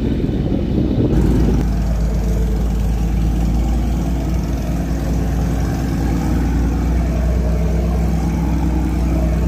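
Wind buffeting the microphone for about the first second, then a large boat's engine running at a steady low hum.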